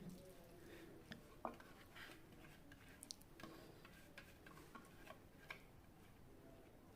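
Faint, irregular clicks and taps of a spoon against a bowl as blended spice paste is scraped onto the chicken, over near-silent room tone.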